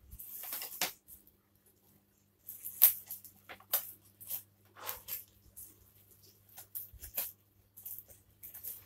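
Plastic parcel wrapping crinkling and tearing in irregular bursts as it is pulled apart by hand, with scissors cutting into it near the end.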